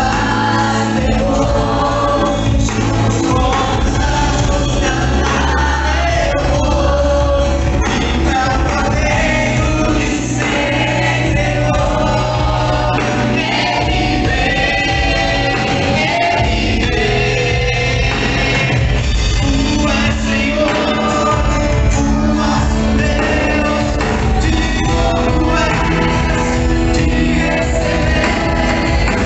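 Gospel music with a band and sung voices, loud and steady throughout.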